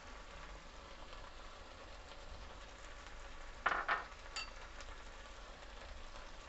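Okra and onions sizzling gently in oil in a frying pan. Just past the middle there is a short scrape, then a brief light clink.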